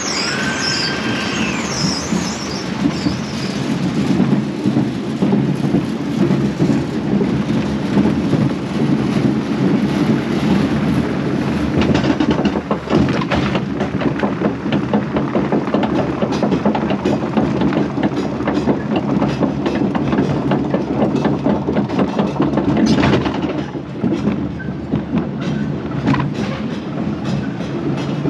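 Small kiddie roller coaster train running around its track, its wheels rattling steadily with scattered sharp clacks.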